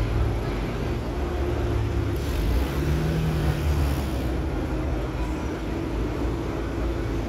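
Engine of a World War II–era army half-track running low and steady as it drives slowly past, with a steady droning tone over the rumble.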